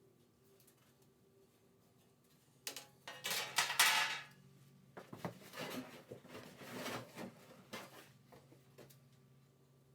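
Sheet-metal body panels being pulled out of their shipping box: a loud scraping rustle about three seconds in, then a run of metallic clatters and knocks for a few seconds.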